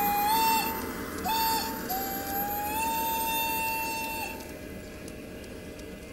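Piko BR 254 model electric locomotive and its passenger cars running past on the track: a high, steady motor whine that breaks off twice in the first two seconds, then rises in pitch and cuts out about four seconds in, over the steady rumble of the wheels on the rails.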